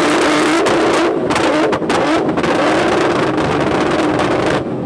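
Nissan GT-R's twin-turbo V6 held at high, steady revs for about four and a half seconds, its exhaust cracking and banging as it spits flames, then cutting off sharply near the end.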